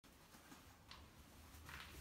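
Near silence: room tone, with a faint tick about a second in and a faint soft rustle near the end.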